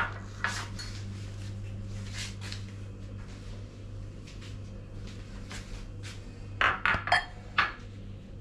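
Glass bowls and a metal spoon clinking as they are handled on a stone countertop, with a few clinks at the start and a quick cluster of sharp clinks near the end, over a steady low hum.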